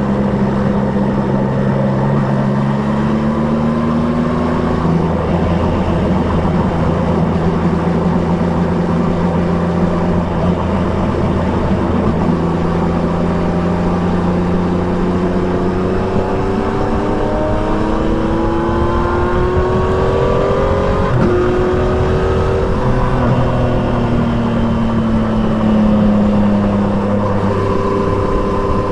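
Triumph Trident 660's inline three-cylinder engine with an Akrapovic exhaust, under way on a motorcycle ride. The engine note holds steady, then rises steadily in pitch under acceleration, drops sharply as the revs fall, and climbs again near the end.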